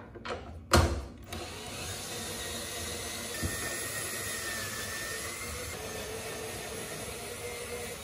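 A knock about a second in, then a cordless drill running steadily as it drives screws out of a generator's plastic fuel tank, its pitch sagging slightly midway as the load changes.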